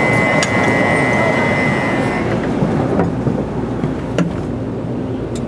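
Shinkansen platform departure signal ringing as one steady high electronic tone, cutting off a little over two seconds in, over a din of voices and train noise. A few sharp clicks follow.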